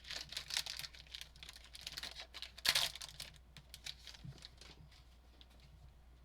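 Trading cards and their packaging being handled at close range: a quick run of light clicks and rustles, with a louder crinkle about two and a half seconds in, thinning out to faint handling in the second half.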